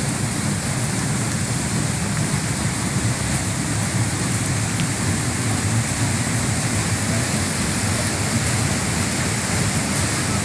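Steady rushing noise of fast-flowing water in the channel beside the path, an even hiss over a low rumble.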